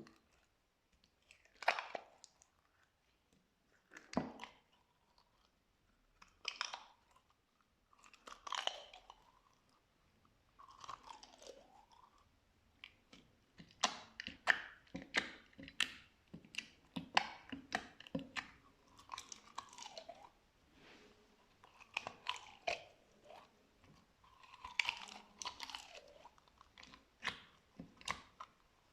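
Slime being squished and pressed by hand, making wet crackling pops and squelches. The pops come in separate bursts a couple of seconds apart at first, then in quick dense runs through the second half.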